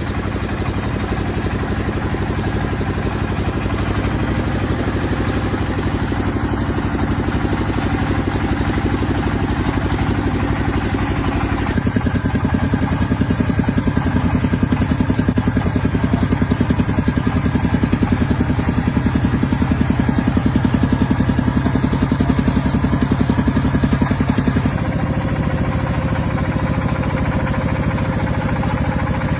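Tractor engine running steadily with a fast, even firing beat; its note changes about twelve seconds in and it runs a little louder until near the end, when it eases off slightly.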